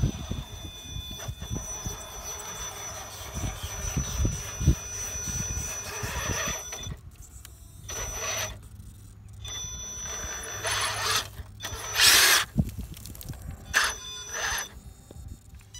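RC scale truck's brushless electric motor whining steadily as the truck crawls through thick mud. In the second half the throttle comes in short bursts, with louder surges as the wheels spin and churn the mud.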